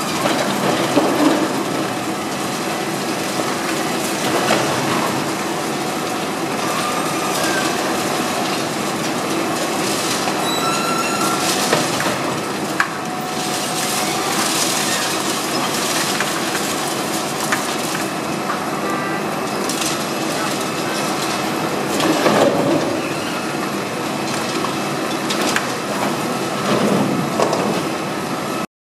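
Continuous crunching and cracking of concrete and falling rubble as a high-reach demolition excavator's jaws break down a concrete multistorey car park, with heavy machinery running underneath. It cuts off suddenly near the end.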